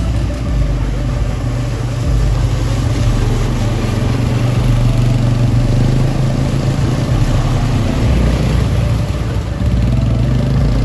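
Quad bike (ATV) engines running steadily as the bikes drive through a shallow muddy water channel, with water splashing from the wheels.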